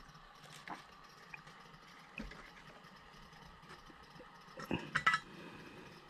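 Faint handling noise of small wires and tools: a few light clicks and taps, with a short cluster of louder clicks a little before the end.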